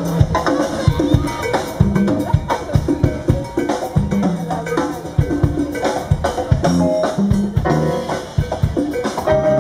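Live marimba band playing an upbeat son: several players on a large marimba over a drum kit keeping a steady beat with rimshots, and a bass line.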